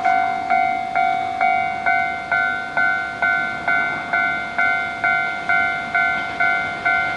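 Japanese railway level-crossing warning bell ringing at about two strikes a second, each strike a ringing tone that fades before the next: the crossing's alarm that a train is approaching.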